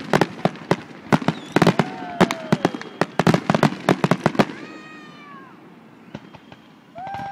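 Fireworks finale barrage: a dense run of sharp bangs and cracks from aerial shells for the first four and a half seconds, then thinning to a few scattered reports. Spectators let out high whooping cries that fall in pitch, one in the middle and a louder one near the end.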